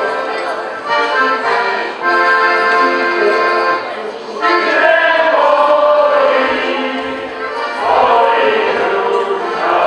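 Accordion playing a folk dance tune in held chords, joined by a group of voices singing from about halfway through.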